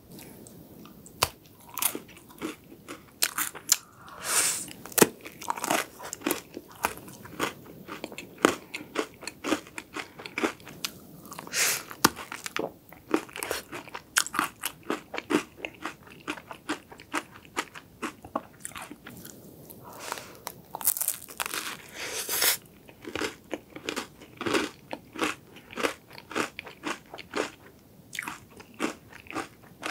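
Close-miked eating of a Loacker Ice Circle, a chocolate-coated wafer ice cream: many sharp, irregular crunches of the crisp chocolate and wafer as it is bitten and chewed.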